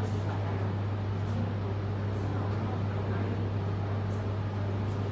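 Steady low hum over faint, even background noise.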